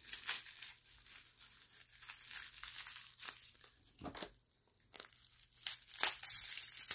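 Clear plastic wrapping crinkling and tearing in short, uneven rustles as it is pulled and cut off a small metal gun lock, with a few sharper crackles around four seconds in and again near the end.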